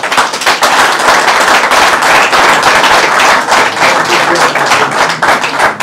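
Audience applauding: many hands clapping at once, starting abruptly and keeping up steadily.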